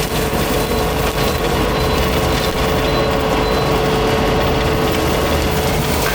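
Fecon forestry mulcher head on a Takeuchi tracked carrier running steadily while mulching brush and wood, with a constant whine over the engine and drum noise.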